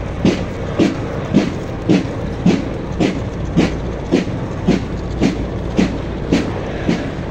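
A column of marines in combat boots marching in step on pavement: their boots strike the street together in a steady beat of just under two steps a second.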